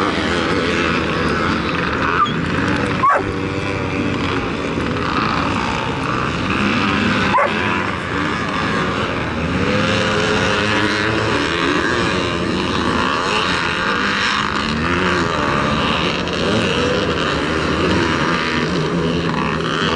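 Vintage motocross motorcycles racing, several engines revving up and down in pitch as they work around the track.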